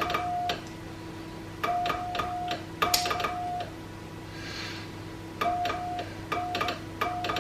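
Morse code keyed on a Paraset valve transceiver replica: a steady-pitched tone in dots and dashes, each element starting and stopping with the click of the hand key, over a low steady hum. The keying pauses in the middle for a couple of seconds, when a brief hiss is heard.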